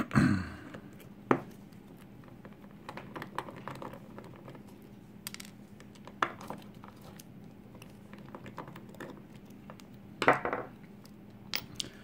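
Small metal clicks, taps and scrapes as a brass lock cylinder is taken apart with a thin metal tool and handled, the loudest clatter at the very start and another cluster about ten seconds in. A faint steady hum runs underneath.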